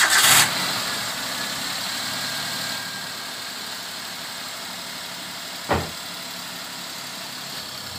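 Suzuki Alto 800's three-cylinder engine just after catching: loud for the first half second, then settling in steps to a steady fast idle, the raised idle of a cold start. A single sharp knock sounds near the six-second mark.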